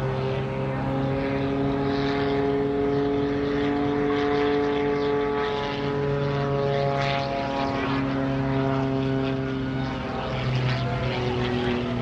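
Extra 300 aerobatic plane's propeller and six-cylinder Lycoming engine droning steadily overhead, the pitch shifting several times as it manoeuvres.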